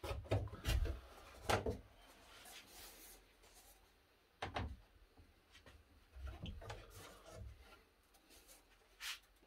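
Small wooden boards being handled: a few separate knocks of wood set down or bumped, with some rubbing and scraping in between.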